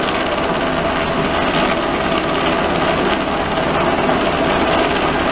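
US Coast Guard MH-60 Jayhawk helicopter flying low overhead, its rotors and turbine engines loud and steady.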